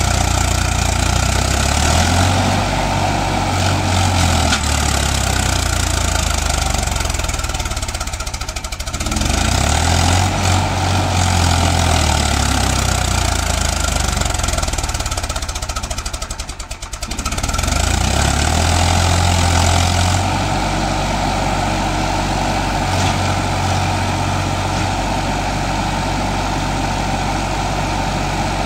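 Farmtrac tractor's diesel engine running under heavy load as it hauls a loaded sugarcane trolley. The engine twice bogs down briefly, about a third of the way in and again past halfway, then picks back up.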